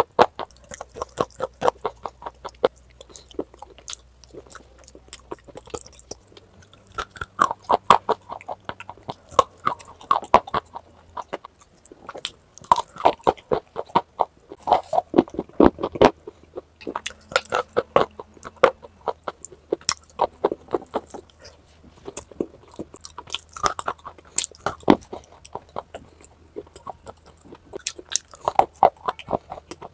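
Close-miked crunching and chewing of hard clay and slate-like bars: runs of sharp, rapid crunches in clusters, with short pauses between bites.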